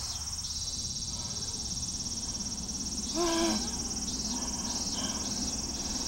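Steady high-pitched drone of insects over a low rumble. About three seconds in, a man lets out a short strained groan.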